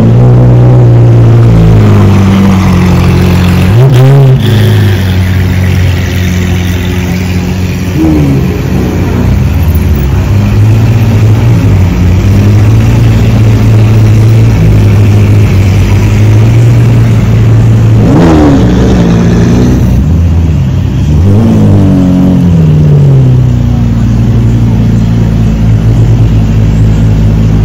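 Several supercar engines running loud and deep at low revs, with quick throttle blips whose pitch rises and falls: about four seconds in, about eight seconds in, and twice between about eighteen and twenty-one seconds in.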